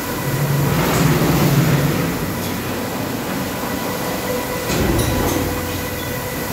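Automatic carpet-washing machine running, a steady mechanical hum and rumble with faint steady whining tones. It swells louder about a second in and again about five seconds in.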